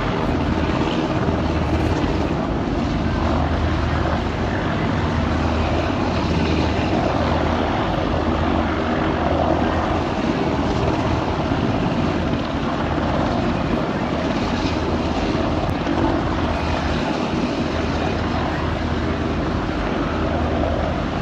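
Jet airliner noise: a steady rush of engine and air sound with a constant low hum.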